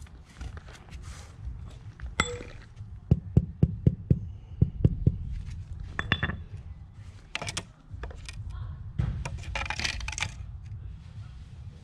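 Steel trowel working mortar into the joint under a sandstone coping stone: scraping, with a quick run of sharp taps and clinks about three seconds in, and a longer rough scrape near the end.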